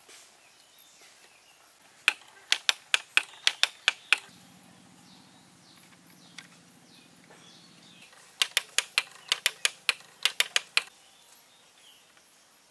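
Two quick runs of sharp, hard clicks, about four or five a second, from small bamboo parts of a miniature model being fitted and tapped together by hand.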